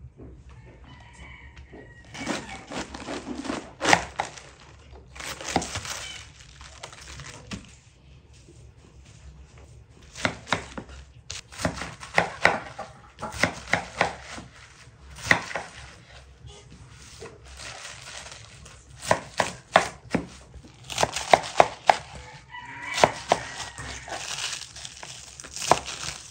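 Kitchen knife chopping cabbage on a wooden cutting board: runs of quick, sharp strikes with pauses between. A rooster crows in the background.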